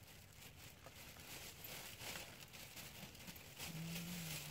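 Faint outdoor background hiss with a few light ticks, and a faint voice briefly near the end.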